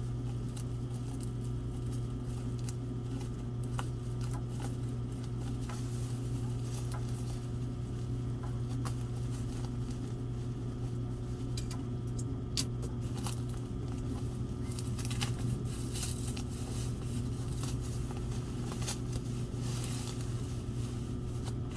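Hands rustling, scratching and tapping at a parcel's packaging as it is being opened, with irregular small clicks and scrapes over a steady low hum.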